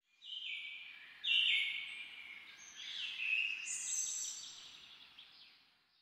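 Birdsong: a series of high trills at several pitches, overlapping one another, loudest about a second and a half in and fading out near the end.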